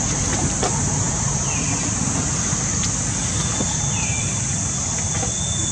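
Outdoor background noise: wind rumbling on the microphone under a steady high hiss, with a few faint clicks. Two short falling chirps come about a second and a half in and again near four seconds, and a thin high whistle-like tone sets in just past halfway.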